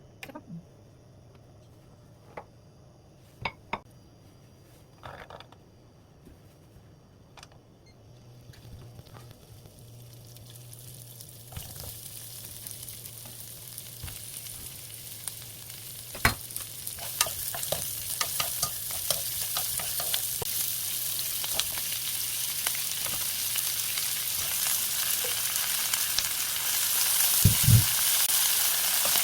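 Food frying in oil in a pan, the sizzle starting faint about a third of the way in and growing steadily louder, with sharp clicks of a utensil stirring against the pan. Before the sizzle begins there are only a few scattered knocks and clicks.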